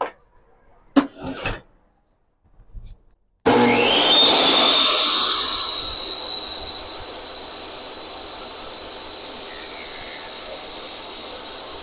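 A short knock, then a few seconds later a portable DeWalt table saw is switched on: its motor whine rises quickly to a steady high pitch and it runs on, loud for the first few seconds and then settling lower.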